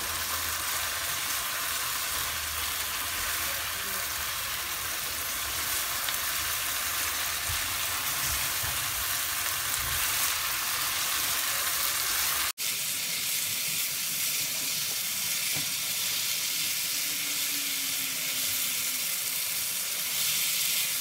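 Chicken pieces and ground spices frying in hot oil in a nonstick pan, a steady sizzle, while a spatula stirs them through. The sound cuts out for an instant about twelve seconds in.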